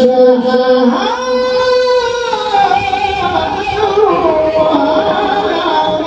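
A man's voice reciting the Quran in a melodic Egyptian style, with a long held note starting about a second in, then a wavering, ornamented line that falls and rises.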